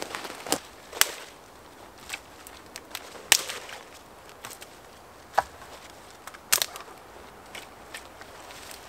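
Dry sticks knocking and clattering against one another as they are laid onto a stick A-frame shelter: a handful of sharp wooden cracks, the loudest about three seconds in.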